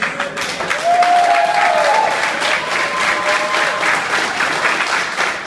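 Football team clapping and cheering together, with a drawn-out shout over the applause about a second in.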